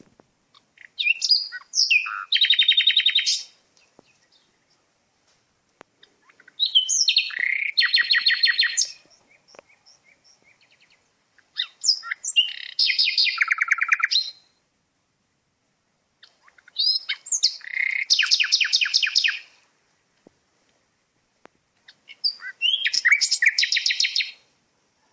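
A songbird sings the same loud phrase five times, about every five seconds: a few quick high notes that run into a fast rattling trill lasting a couple of seconds, with quiet in between.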